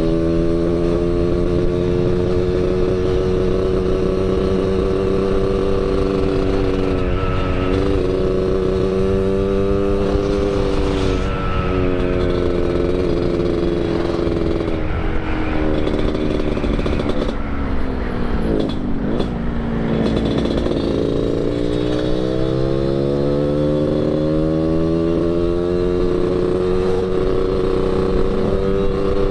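Yamaha RX-King 135 cc two-stroke single running through an underbody expansion-chamber exhaust set up for a gruff 'ngorok' note, ridden along under power. The engine note holds fairly steady, falls away about two-thirds of the way through, then climbs steadily as the bike accelerates.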